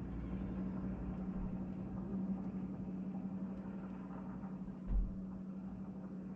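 A car running, heard from inside the cabin: a steady engine and road hum, with one low thump about five seconds in.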